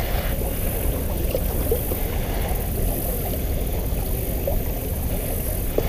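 Creek water rushing steadily, with the low sloshing of water around the wading angler's legs.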